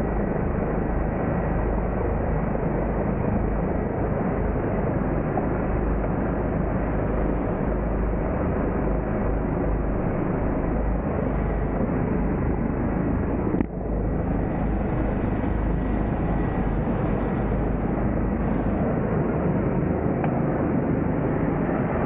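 Steady helicopter engine and rotor noise heard from inside the cabin, with a faint high whine. A single short knock comes about two-thirds of the way through.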